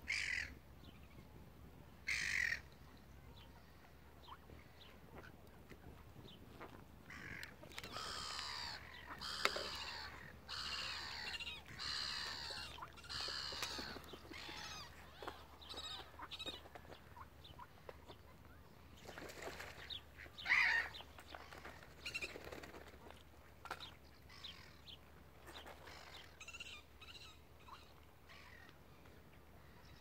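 Gulls calling with harsh squawks: two single calls at the start, then a long run of overlapping squabbling calls in the middle, with more loud calls later and scattered ones to the end.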